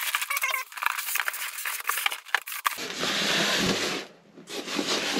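Packaging being opened by hand: crackling and rustling of cardboard and plastic. This is followed by two longer rasping sounds near the end.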